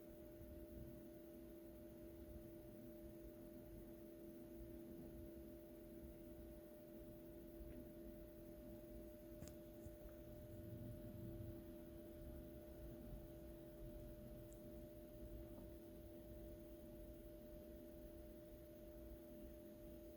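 Near silence: room tone with a faint steady hum made of two even tones.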